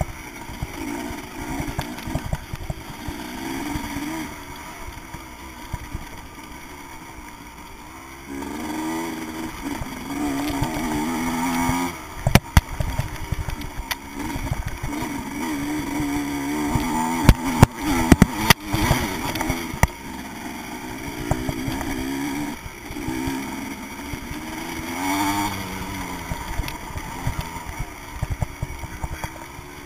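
Vintage motocross motorcycle engine heard from a camera mounted on the bike, revving up and down repeatedly as it is ridden around a dirt track. Several sharp knocks come about twelve seconds in and again between seventeen and nineteen seconds.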